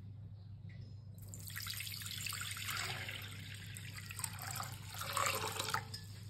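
Water poured in a stream into a glass bowl, splashing and gurgling as the bowl fills; the pour starts about a second in and stops shortly before the end. A low steady hum runs underneath.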